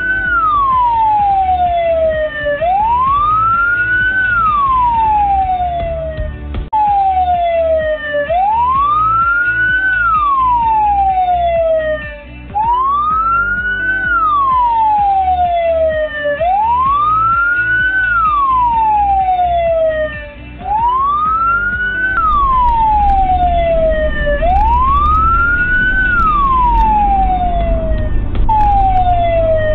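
Electronic emergency-vehicle siren in wail mode. It sweeps up in pitch over about a second and a half and falls back more slowly, about once every four seconds, and breaks off briefly a few times. Engine and road rumble sits underneath and grows louder near the end.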